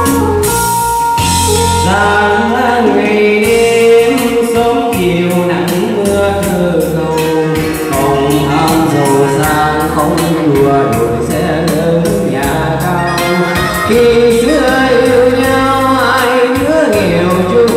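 Backing-track music with a steady beat, played loud over a PA system, with a man singing into a microphone.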